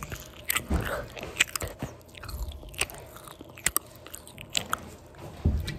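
A child chewing and biting candy right up against the microphone, with irregular sharp crunches and mouth clicks and a couple of dull bumps.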